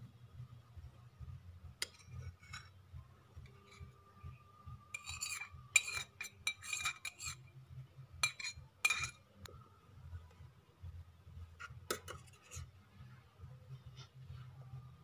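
Small metal spoon scraping and clinking against a miniature steel pan and plate as food is spooned out: scattered clinks, busiest from about five to nine seconds in and again near twelve seconds, over a low steady hum.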